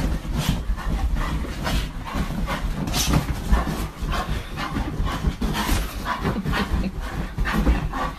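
A dog vocalising as it digs and paws at a blanket on a mattress, with a dense, irregular run of scrabbling and rustling against the bedding.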